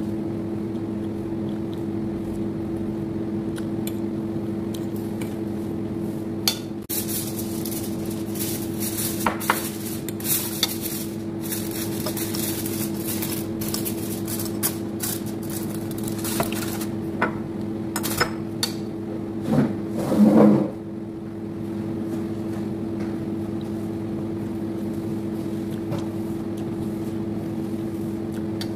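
A metal fork and spoon clinking and scraping against a plate and a glass jar, with eating sounds, over a steady low hum. A brief louder sound stands out about two-thirds of the way through.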